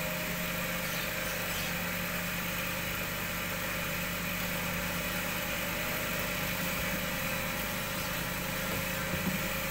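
Cotton candy machine with a jumbo cast-aluminium spinner head running steadily at working speed and heat, a steady motor hum over an even rushing noise.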